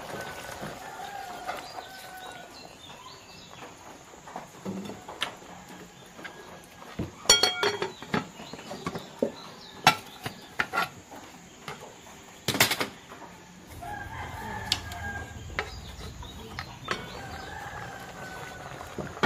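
Rooster crowing several times, a drawn-out call near the start and again twice near the end. In between come sharp metallic clatters and one loud clank, fitting the metal lid and enamel mug being handled on the cooking pot.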